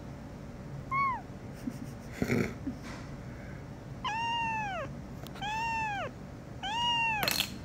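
Young kitten meowing in complaint while held for treatment: one short meow, then three longer meows, each rising and then falling in pitch.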